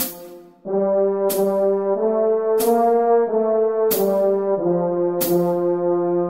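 French horn playing a melody: after a brief breath near the start, a run of short notes steps up and back down, then settles on a long held note. A sharp percussive beat sounds about every 1.3 seconds underneath.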